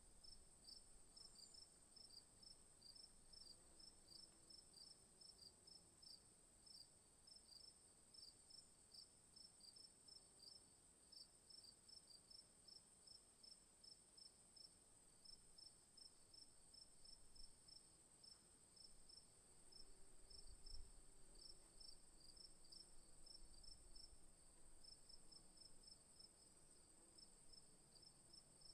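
Faint bush insects: a steady high-pitched drone with a cricket chirping about two to three times a second over it, and a brief low rumble about two-thirds of the way through.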